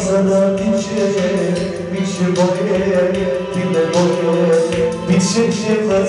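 Live music through a PA: an electronic keyboard playing a Balkan folk-pop tune over a steady drum beat, accompanying a male singer on a microphone.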